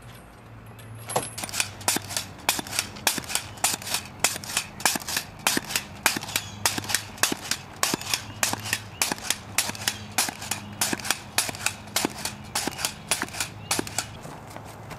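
Pogo stick bouncing on an asphalt road: a steady run of sharp clacks, about three or four a second, starting about a second in.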